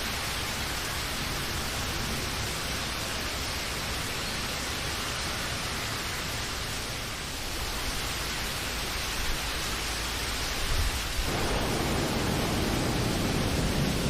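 Steady heavy rain, an even hiss with no pauses. Near the end a deeper, fuller low rumble comes in under it and the sound grows slightly louder.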